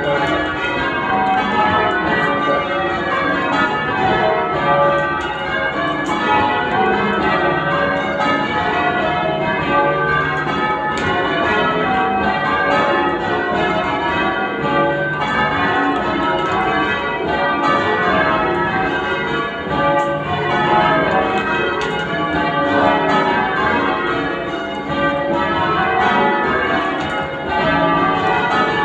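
Church tower bells being rung in changes (full-circle change ringing): an unbroken stream of overlapping bell strikes.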